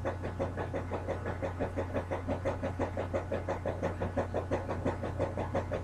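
A small motor running: a steady low hum with a fast, even pulsing of about six or seven beats a second.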